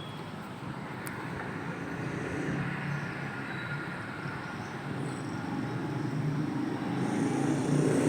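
Steady low rumbling background noise, like distant traffic, that slowly swells toward the end, with a faint click about a second in.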